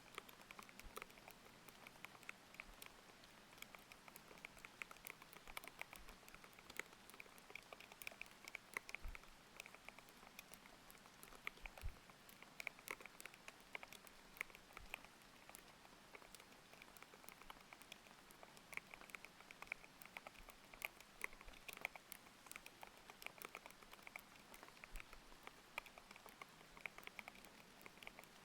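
Steady typing on a thocky mechanical keyboard with Aqua King linear switches: quick, irregular keystrokes, several a second. Underneath runs a faint, even layer of rain.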